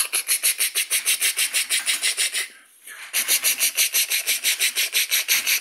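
Chugging sound of a toy building-block train: a fast, even chuff of about eight beats a second, in two runs with a short break about two and a half seconds in.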